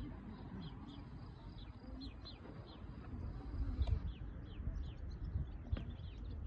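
Small birds chirping: many short, high, downward chirps, several a second, growing busier in the second half. Wind rumbles on the microphone underneath, gusting louder a little past halfway.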